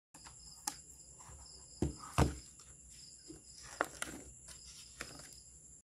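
A ring-bound journal being handled on a wooden desk: its elastic band slipped off, the plastic cover opened and pages turned, giving scattered soft clicks and knocks, the loudest a low thump a little over two seconds in. A steady high-pitched drone, like insects chirring, runs underneath.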